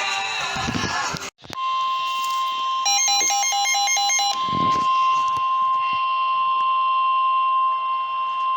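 Weather radio alert tone: after an abrupt cut, one steady high tone starts about a second and a half in and holds. A quick run of electronic beeps sounds over it around three to four seconds in. This is the warning alarm that precedes a National Weather Service warning broadcast.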